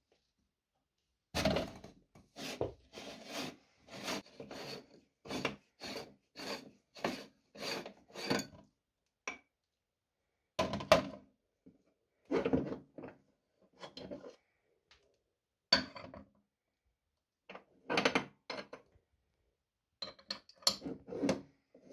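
A metal meat grinder being taken apart by hand: a run of about ten rasping scrapes, one every second or less, as the threaded retaining ring grinds round on its thread, clogged with ice cream. Then scattered knocks and clunks as the ring and the perforated cutting plate are pulled off and set down.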